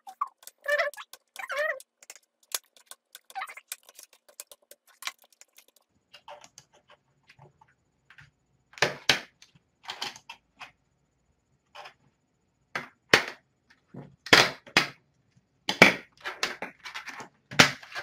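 Screwdriver and hands working on a plastic laptop case: irregular sharp clicks and knocks, sparse and faint at first, then louder and more frequent about halfway in, in footage sped up in editing.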